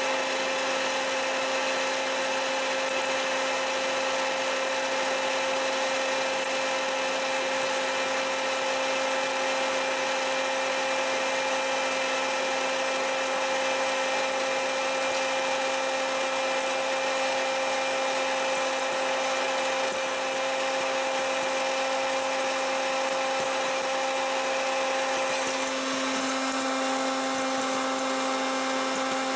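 Hot-air popcorn machine running: its fan motor gives a steady whine over an even rush of blown air.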